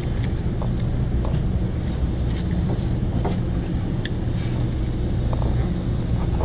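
Steady low drone of the boat's engines running, with a few light clicks and taps over it.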